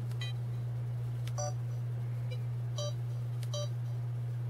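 Sony Cyber-shot DSC-H300 camera beeping as its control wheel is pressed to step through the menu: about five short electronic beeps, some higher and some lower in pitch, each with a faint button click. A steady low hum runs underneath.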